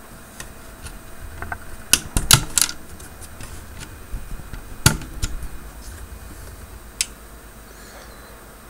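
Plastic backlight lamp connectors being unplugged from an LCD monitor's power inverter board: a run of sharp plastic clicks and rattles, a cluster about two seconds in, a loud click near five seconds and a last one near seven.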